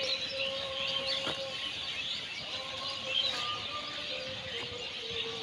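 Many small birds chirping continuously over a faint steady hum.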